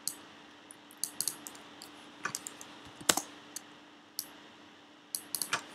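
Computer keyboard keys tapped in scattered, irregular clicks while numbers are entered, the loudest about three seconds in, over a faint steady hum.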